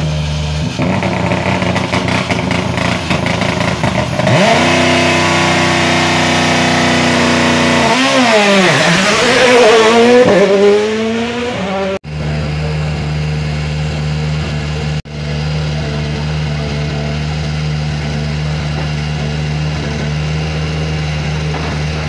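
Toyota GR Yaris Rally1 car's 1.6-litre turbocharged four-cylinder engine running with the anti-lag system on. It idles roughly with irregular pops and crackles, then is held at higher revs and blipped up and down. A second Rally1 car, a Hyundai i20 N, then idles steadily.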